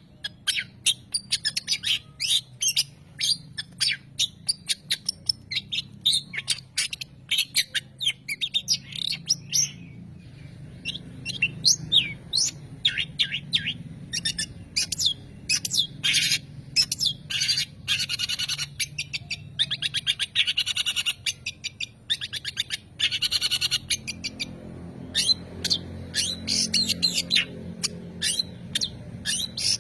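Long-tailed shrike (pentet) singing a varied run of rapid chirps, harsh notes and short trills, with a brief pause about ten seconds in.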